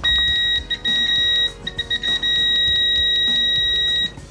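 RS PRO RS-12 multimeter's continuity beeper sounding a steady, high-pitched tone, signalling a closed circuit. The tone cuts out briefly a few times and stops about four seconds in.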